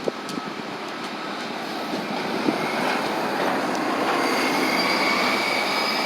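A transit bus passing at close range, its noise building and then easing off, with a high thin squeal joining about halfway through.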